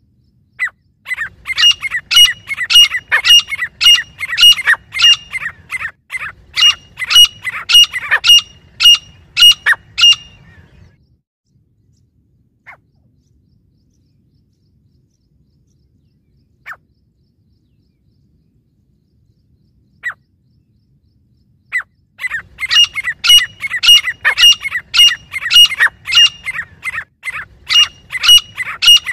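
Grey francolins calling in fast, loud trains of sharp repeated notes, about three a second, for some ten seconds. A pause follows with only a few single notes, and the calling starts again about 22 seconds in.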